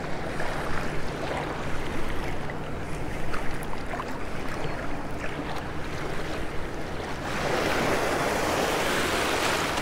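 Shallow surf washing and lapping, with a louder, steady wash of a small breaking wave from about seven seconds in.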